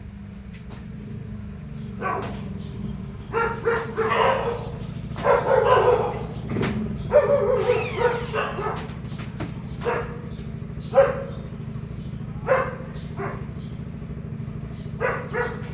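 A dog barking repeatedly, in short single barks and quick pairs, over a steady low hum.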